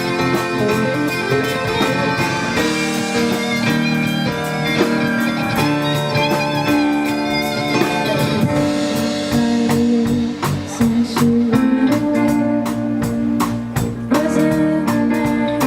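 A live band plays an instrumental passage: guitar carries the music over a drum kit, and the drum hits grow sharper and steadier about halfway through.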